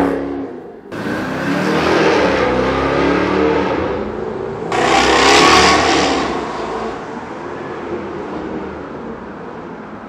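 Jaguar F-Type V8 S's supercharged 5.0-litre V8 accelerating hard under load, heard across a few spliced driving shots that change abruptly about a second in and again near the middle. It is loudest around the middle and then dies away.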